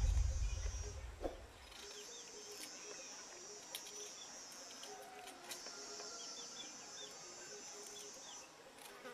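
Rural outdoor ambience: insects keep up a steady high trill that drops out twice for a second or two, while small birds chirp around it. A low rumble fades away over the first two seconds, and a few faint clicks come through.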